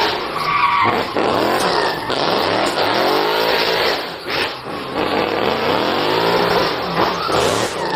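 Race car engine revving up and down several times in a row, its pitch rising and falling in repeated sweeps over a steady rush of noise.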